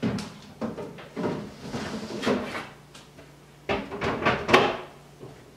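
A solid dehydrator tray being slid into an Excalibur food dehydrator and the unit handled shut: a run of plastic scrapes and knocks, with a louder cluster about four seconds in.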